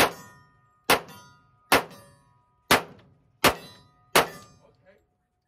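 Semi-automatic pistol firing six shots at a steady pace, about one a second. Each shot is followed by a brief metallic ring from a hit on a steel target.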